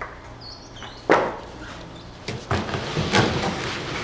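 A large cardboard shipping crate being handled and lifted off its pallet: a single knock about a second in, then cardboard scraping and rustling as the crate top slides up.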